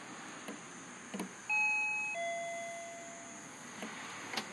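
Panasonic intercom doorbell chiming once: a two-note ding-dong, a higher note followed by a lower one that fades over about a second. A couple of faint clicks come before it.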